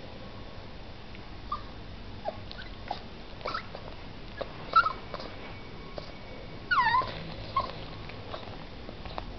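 Old English Sheepdog puppy whimpering: short high whines scattered through, with the loudest, a falling squeal, about seven seconds in.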